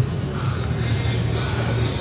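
Music playing, with the steady noise of city traffic underneath.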